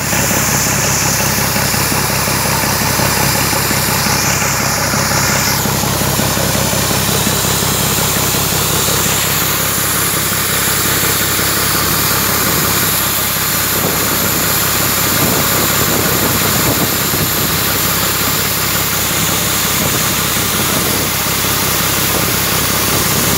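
Large 24-valve engine running steadily at an even, idle-like speed.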